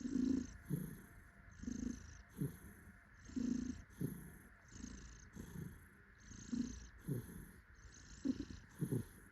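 Domestic cat purring contentedly while being held and cuddled. The purr swells and fades in pairs, with each breath in and out, about one breath every one and a half seconds.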